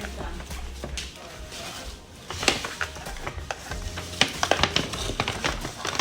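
Irregular rustling and light clicks of objects being handled, with faint background music.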